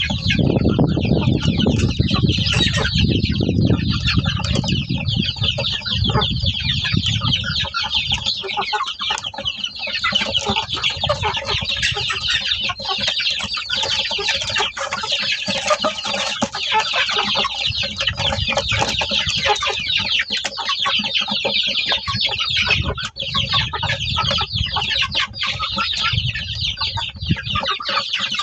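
Many birds calling at once in a dense, continuous chatter. A low rumble sits under it for the first few seconds.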